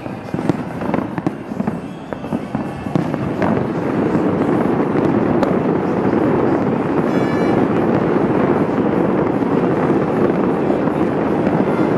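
Aerial fireworks going off in a string of sharp bangs for the first few seconds, then building into a dense, continuous, louder din of bursts and crackling from about four seconds in.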